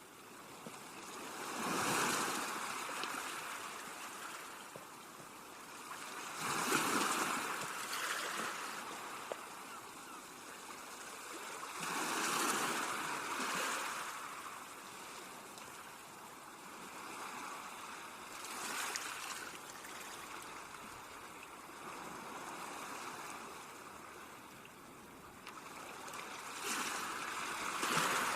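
Sea waves breaking and washing up a beach: a surge of surf about every five to six seconds, five in all, with a steady hiss of water between.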